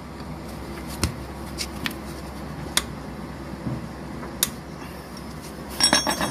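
Box wrench working the gear oil drain plug on a Yamaha Mio Aerox 155 scooter's transmission case: scattered single metal clicks and taps, then a quick cluster of clicks near the end.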